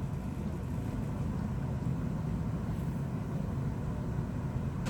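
Steady low background rumble with no distinct clicks or tool sounds.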